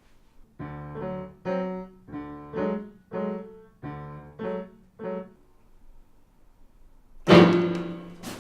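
Piano played in short, halting phrases of single chords, about nine in all, then after a pause one much louder crashing chord that rings on.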